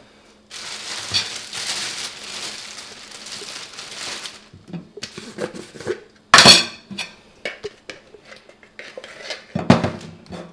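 Kitchen clatter of dishes and cutlery being handled: a few seconds of steady noise at first, then scattered clinks and knocks, with a loud clatter about six seconds in and another near the end.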